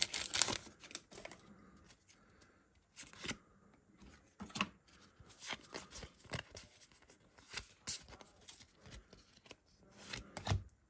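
Pokémon trading cards being flicked one at a time from one stack onto another, a short soft snap or slide with each card at an irregular pace.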